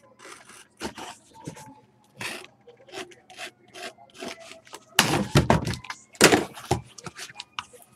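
A sealed cardboard case being cut and opened by hand: small scrapes and rubbing of cardboard, then two louder scraping strokes about five and six seconds in as the tape seal is cut through.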